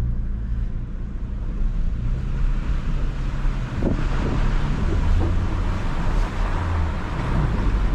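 Off-road vehicle's engine running steadily at low revs, with wind rushing on the microphone that grows stronger about halfway through.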